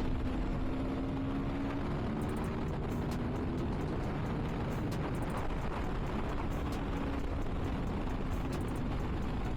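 Aprilia Tuono V4's 1077 cc V4 engine running at a steady highway cruise, its note easing slightly lower in the first couple of seconds. Wind rushes over the rider's microphone underneath it.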